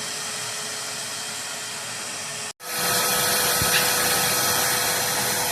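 Multipro VC 10-1 YS wet & dry vacuum cleaner running on its first trial: a steady motor hiss and whine. About halfway it cuts out for an instant and comes back louder.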